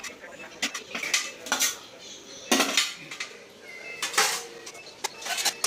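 Metal kitchenware clinking and knocking against aluminium steamer plates as the steamed rice-flour balls are handled: a series of sharp clinks, the loudest about two and a half and four seconds in.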